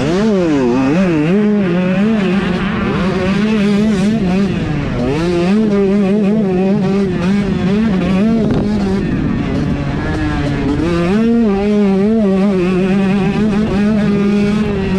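125 cc two-stroke dirt bike engine racing at high revs, its note held high for long stretches and dropping then climbing again as the throttle is closed and reopened, about a second in, around five seconds in and around ten seconds in.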